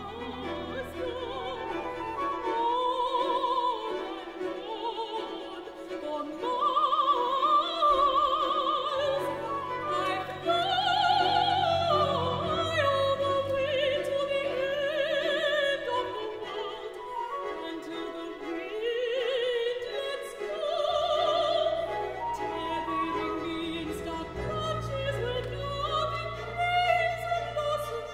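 Mezzo-soprano singing an operatic solo line with wide vibrato, accompanied by an orchestra whose strings hold low sustained notes.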